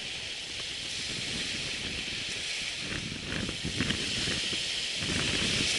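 Waves washing onto a sandy beach as a steady hiss, with uneven wind buffeting the microphone underneath.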